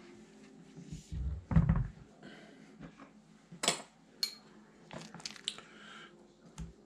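Kitchen handling noises: a dull thump about a second and a half in, then a few sharp clicks and clinks of a metal spoon against a dish as mashed potatoes are scooped.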